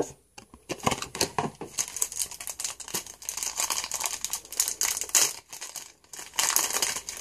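Foil football-card pack being torn open and crinkled in the hands: a dense run of crackles, with a short pause near the end.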